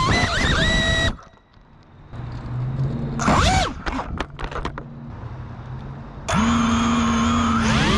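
Cinewhoop FPV drone's brushless motors whining as it tumbles after hitting a tree, then cutting off about a second in. A low hum follows, with a brief burst of motor whine and a few scraping clicks in the middle. About six seconds in, the motors spin up again with a steady whine that rises in pitch near the end.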